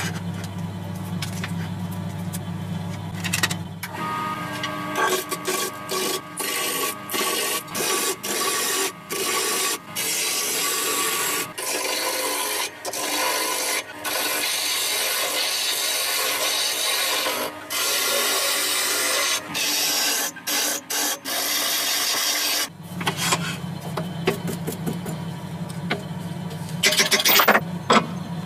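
Steel of a rusty cleaver blade being abraded in repeated rasping strokes, each a second or a few long with brief breaks. A steady machine hum runs at the start and comes back near the end.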